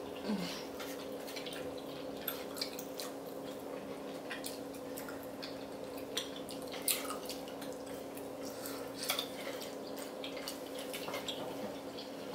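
Eating sounds at close range: wet smacking and chewing of noodles and chewy rice cakes, with scattered light clicks from chopsticks, over a steady low hum.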